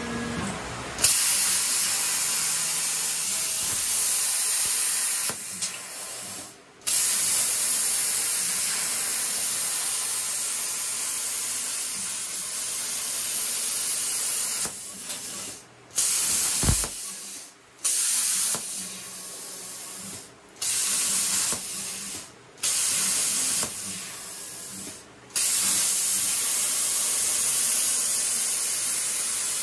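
CNC plasma cutter torch cutting steel plate at 28 amps: a loud, steady hiss of the arc and air that starts about a second in. It cuts out briefly about six times and comes straight back.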